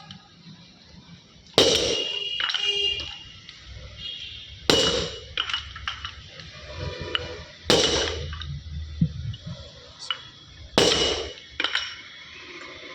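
Hammer blows on metal, four heavy strikes about three seconds apart, each ringing briefly, with lighter metal clinks between them: work on a dismantled Ashok Leyland lorry gearbox.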